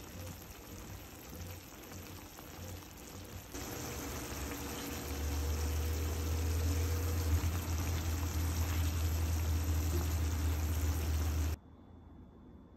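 Ground pork, onion and mushroom mixture simmering in liquid in a frying pan: a steady bubbling hiss that gets louder about three and a half seconds in, with a silicone spatula stirring and a deep hum underneath. It cuts off suddenly near the end to faint room tone.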